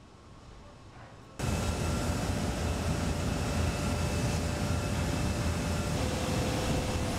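Construction-site machinery noise: a steady low rumble with faint whines, cutting in abruptly about a second and a half in after a short quiet stretch.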